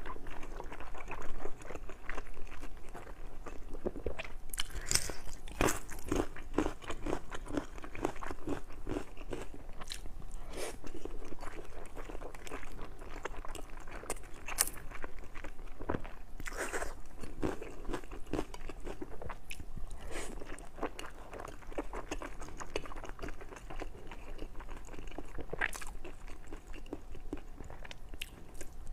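A person chewing and biting food close to the microphone: a steady run of small, irregular wet mouth clicks, with a few sharper bites here and there.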